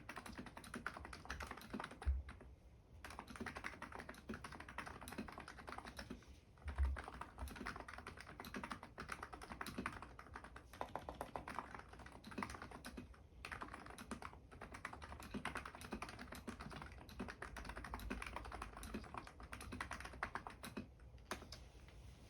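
ABKO KN01 keyboard with fully lubed electro-capacitive switches and SA keycaps being typed on: a steady stream of rapid keystrokes with short pauses. Two heavier low thumps come about two and seven seconds in.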